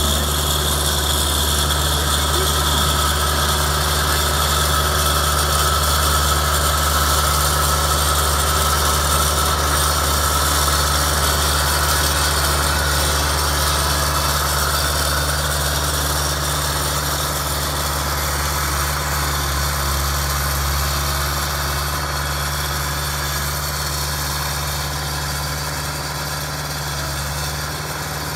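Skid-steer loader's engine running steadily as the machine drives over gravel with a loaded bucket, a steady low hum that grows a little quieter near the end as it moves away.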